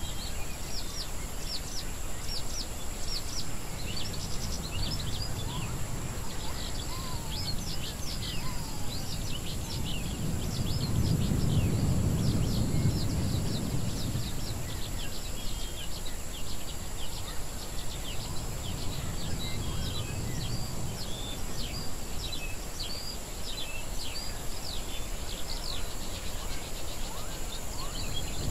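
Layered wild-jungle ambience: many short, high bird chirps in a constant stream over a low rumble that swells about a third of the way in and again near the end.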